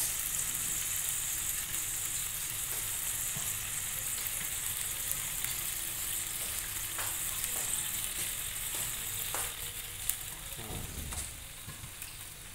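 Tofu and cucumber soup simmering in a steel wok over a portable gas burner: a steady, even hiss with faint ticks. A short click about ten seconds in.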